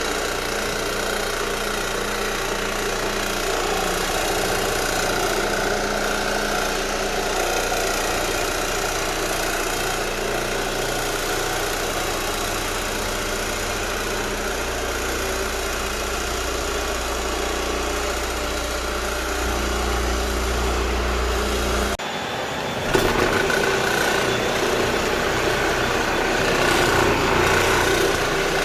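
Square Scrub orbital floor machine running steadily, its pad scrubbing the old polyurethane finish off a hardwood floor. The sound changes abruptly about 22 seconds in and is a little louder afterwards.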